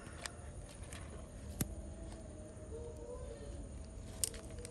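Three sharp clicks of scissors cutting through the shell of a giant freshwater prawn, about a quarter second, a second and a half, and four seconds in.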